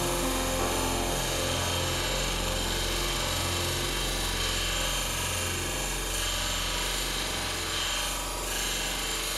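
Bench grinder made from a restored electric water pump motor, its stone wheel grinding a metal bar: a steady grinding hiss over the motor's low hum.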